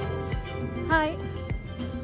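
Background music with a steady beat and held notes, with a brief voice-like sound about a second in.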